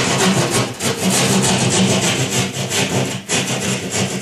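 Keyhole saw cutting through drywall in quick back-and-forth strokes, sawing a diagonal line between two corners of an outlet cutout, with a brief pause about three seconds in.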